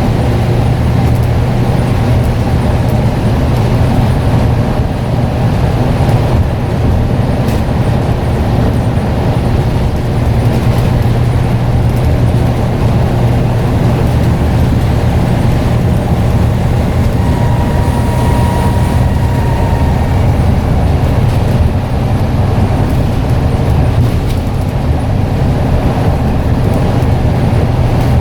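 Scania N94UD double-decker bus's diesel engine running steadily under way, a loud, even hum with road noise.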